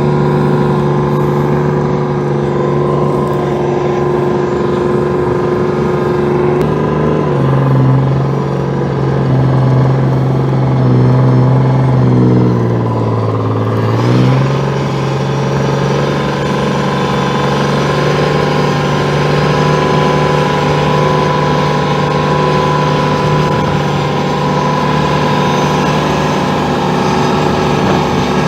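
A tracked armoured vehicle's engine running under way, heard from inside the vehicle. About seven seconds in, the engine note drops, sinks lower with falling glides around twelve to fourteen seconds, then picks back up to its earlier pitch and holds steady.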